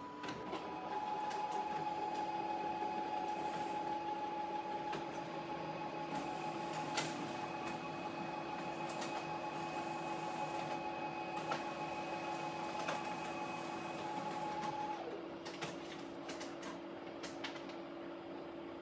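HP office printer starting up and printing a page: a steady whir of motors with a hum, scattered clicks and one sharp click about seven seconds in. Around fifteen seconds in the higher whine stops and a quieter fan hum carries on.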